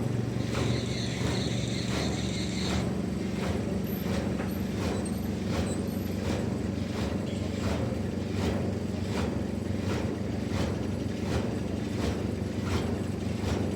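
Sawmill machinery running steadily with an engine hum and a regular light ticking about every half second; a brief hiss over the top during the first few seconds.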